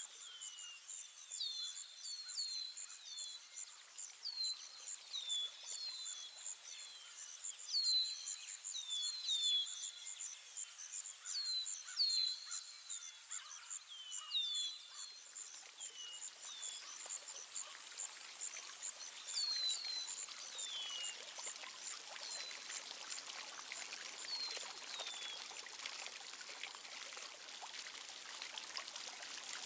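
Outdoor nature ambience: songbirds giving short downward-sweeping chirps, often in quick pairs, over a fast, high, pulsing call and a steady trickle of running water. The chirps thin out about twenty seconds in while the water sound grows fuller.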